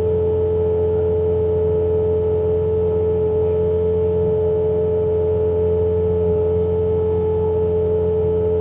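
Bobcat T66 track loader running at full throttle with its snowblower attachment engaged: a steady low drone under a strong, steady high whine.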